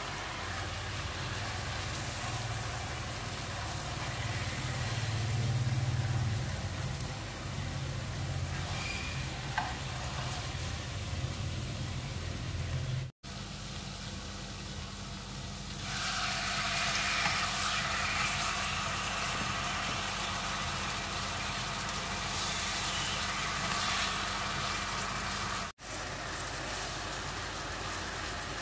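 Char siu pork and its red marinade sizzling in a frying pan as the sauce cooks down, with a low steady rumble under the first part. After a cut, the sauce sizzles louder and brighter in the pan for about ten seconds.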